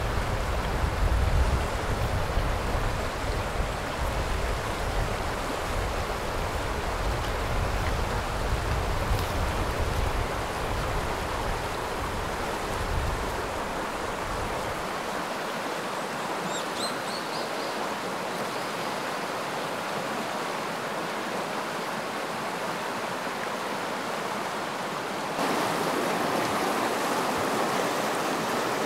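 The Uda River rushing over a shallow, stony bed in rapids: a steady hiss of flowing water. A low rumble runs under it for the first half and stops about halfway through, and the water gets louder near the end.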